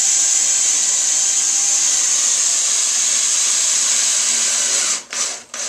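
Power drill running steadily for about five seconds, driving a drywall screw to countersink its head in the patch, then two short bursts near the end as the screw is set just below flush.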